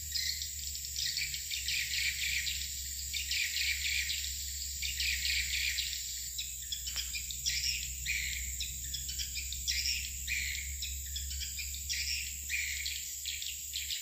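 Swiftlets twittering in quick chirping bursts about once a second around a swiftlet house, over a steady high-pitched whine.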